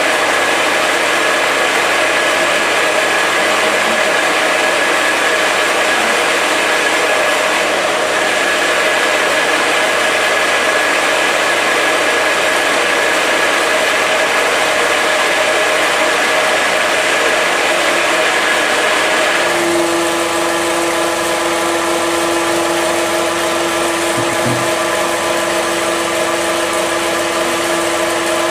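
Small electric animal feed pellet mill running steadily, a loud even machine hum. About two-thirds of the way through the sound changes, settling into a steadier hum with a clear pitched tone.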